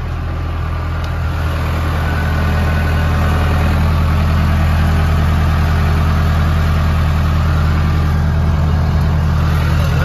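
Case 580L backhoe loader's four-cylinder diesel engine running steadily. It grows a little louder over the first few seconds, then holds even.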